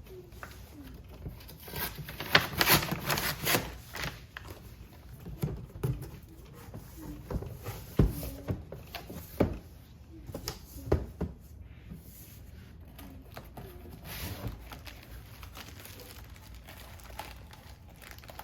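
Cardboard and plastic packing being handled and pulled apart: irregular crinkling and rustling with scattered knocks and clicks.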